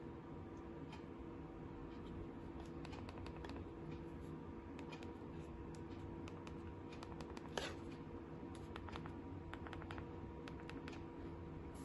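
Keypad buttons of a Nokia 2660 flip phone being pressed with the thumbs: a scatter of light plastic clicks, some in quick runs, with one louder click about halfway through.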